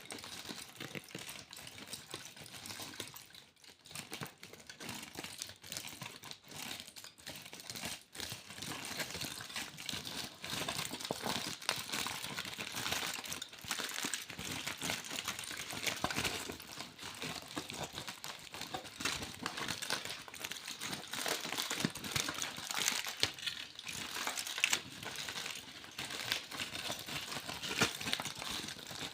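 Foil being crinkled and crumpled by hand, a dense, irregular crackling that grows fuller after the first few seconds.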